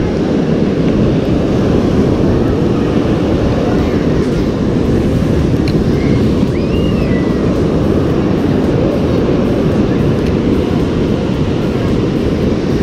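Wind buffeting the microphone over the steady wash of breaking surf, a loud, even rumble with no letup.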